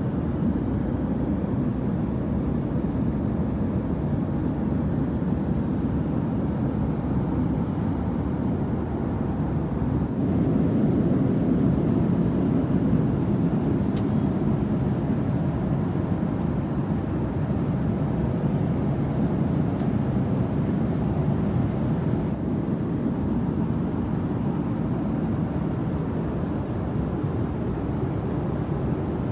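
Steady low rumble of an Airbus A330-300 cabin in flight: engine and airflow noise heard from inside the cabin.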